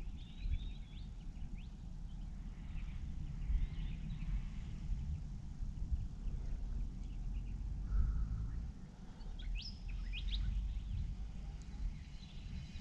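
Low steady rumble of outdoor wind on the microphone, with faint bird chirps now and then.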